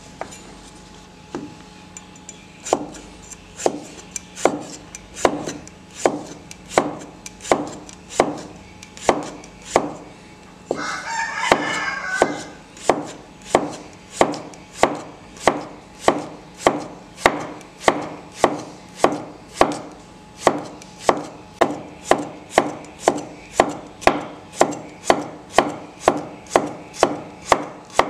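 Cleaver slicing a cucumber on a wooden chopping board: regular knocks of the blade striking the board, slow at first and speeding up to nearly two a second. About halfway through, a single call of about a second and a half sounds over the chopping.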